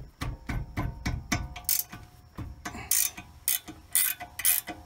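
Ratchet wrench clicking in quick runs as it turns a 15 mm rear brake caliper bolt. The clicks get sharper about halfway through.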